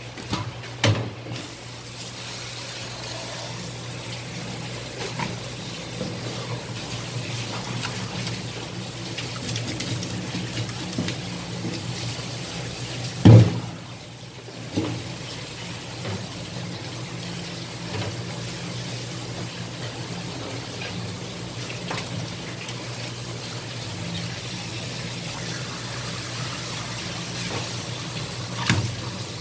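Water running or pouring steadily over a low, steady hum, with one loud knock about thirteen seconds in and a few lighter clicks and taps.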